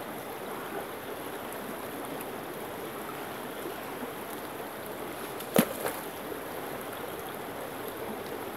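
Shallow stream running over rocks, a steady rush of water, with one sharp knock about five and a half seconds in.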